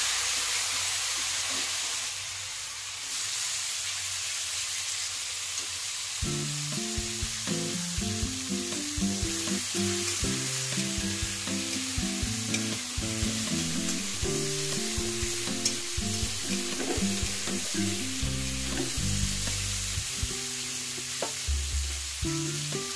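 Dried Bombay duck (lote shutki) pieces sizzling as they fry in hot oil in a kadai, with the spatula clicking and scraping against the pan as they are stirred.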